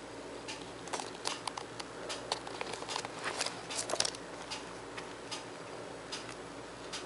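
Football boots and their packaging being handled: a run of light clicks, taps and crinkles, busiest from about one to four seconds in, over a faint steady hum.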